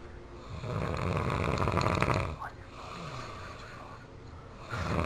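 A sleeping man snoring loudly. One long snore from about half a second in lasts nearly two seconds, a quieter breath follows, and the next snore begins near the end.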